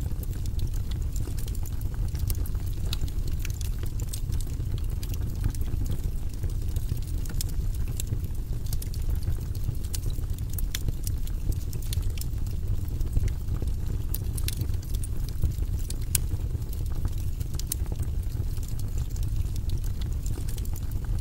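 Wood burning in a fireplace: a steady low rumble of the fire with frequent sharp crackles and pops from the burning wood.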